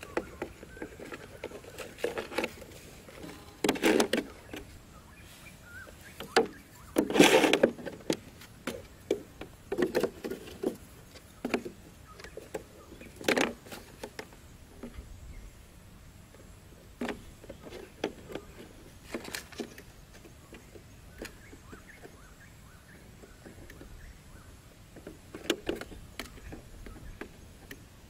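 Irregular clicks, taps and crinkles of a thin plastic bottle and bamboo sticks being handled and pushed together, with a longer crinkle about seven seconds in.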